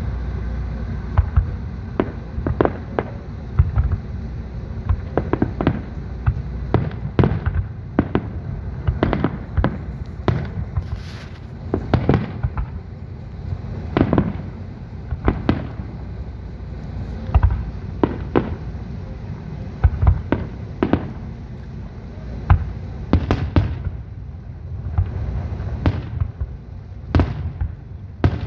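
Aerial fireworks display: a rapid, irregular volley of shell bursts and bangs, several a second, over a steady low rumble.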